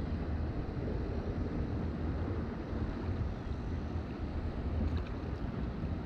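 Wind buffeting the microphone, a low uneven rumble, over the rush of shallow river water.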